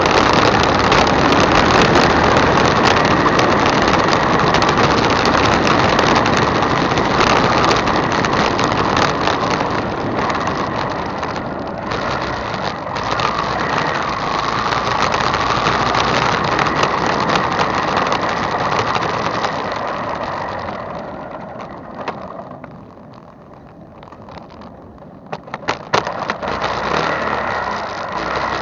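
Motorcycle riding along a street, heard through an action camera mounted on its handlebar: engine and wind noise at a steady level. The noise eases into a quieter stretch about three-quarters of the way through as the bike slows, followed by a few sharp rattles.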